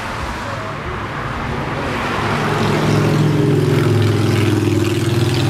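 A motor vehicle on the street passing close by: its engine hum builds from about two seconds in and stays loud to the end.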